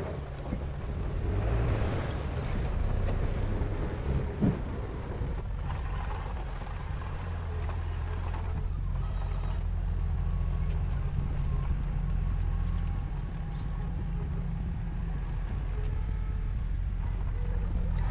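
Heavy-equipment diesel engine running steadily with a low drone, swelling a little at times. One sharp knock about four and a half seconds in.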